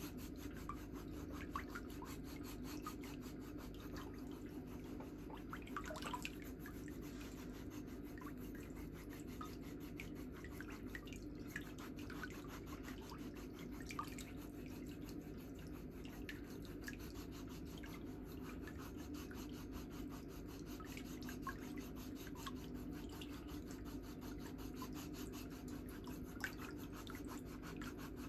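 A stainless-steel foot file scraping dry, flaky skin on the sole of a foot in many short, irregular rasping strokes, over a steady low hum.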